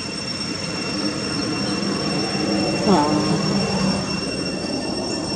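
A macaque gives one short call about three seconds in, sliding down in pitch, over a steady high-pitched background whine.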